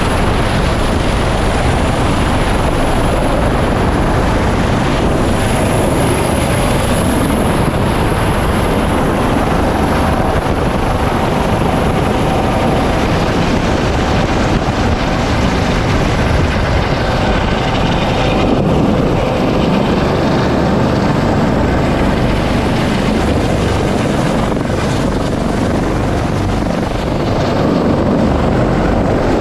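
Loud, steady in-flight noise of a U.S. Coast Guard MH-65 Dolphin helicopter heard from aboard: rotor and turbine engines running without let-up.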